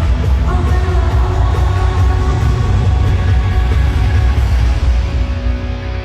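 Live rock band playing loud, with heavy bass and drums under electric guitar, dropping off near the end.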